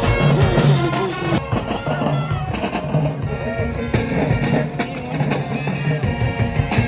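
School marching band playing: brass with a low sousaphone bass line over a steady drum beat.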